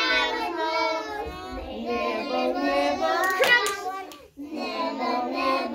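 A group of young nursery children singing a Christmas song together, pausing briefly about four seconds in before the next line.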